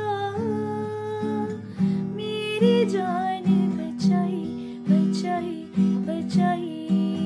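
Acoustic guitar strummed in a steady rhythm, about one strong stroke a second, with a woman singing a Hindi Christian worship song over it.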